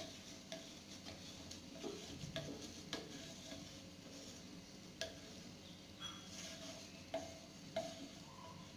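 Wooden spatula scraping and tapping lightly over a ragi dosa on a hot iron tawa at irregular intervals, with a faint sizzle of the dosa frying underneath.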